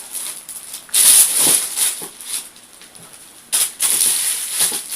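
Packaging rustling and crinkling in short bursts as a stiff gift box is handled and pried open, loudest about a second in and again near the end, quieter between.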